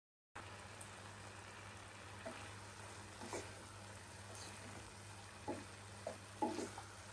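Wooden spatula stirring oats into simmering dal and vegetables in a nonstick saucepan: several soft scrapes and knocks against the pot, the loudest near the end, over a faint steady simmering hiss.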